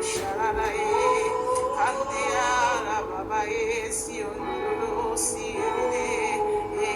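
Slow spontaneous worship music: a voice singing long, wavering lines in tongues over steady held keyboard-like tones.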